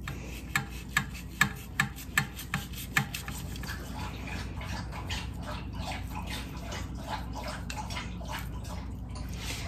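A knife, steadied by a fork, cutting into a whole roast chicken in a metal roasting pan. Sharp clicks come about every half second for the first three seconds, then quicker, softer cutting and scraping follows.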